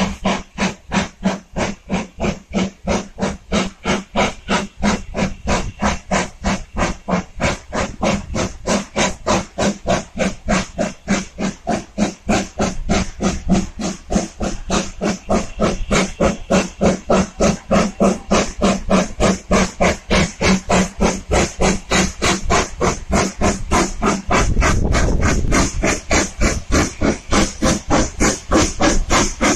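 LMS Jubilee class three-cylinder 4-6-0 steam locomotive 45596 Bahamas working hard with a train of coaches: a rapid, even exhaust chuff, about four beats a second, growing louder as it approaches. A low rumble joins the beats near the end as the train comes close.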